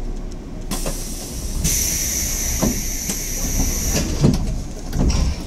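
A 185-series electric train standing at a platform lets out a hiss of compressed air. The hiss begins about a second in and is strongest for about two seconds, followed by a few dull knocks.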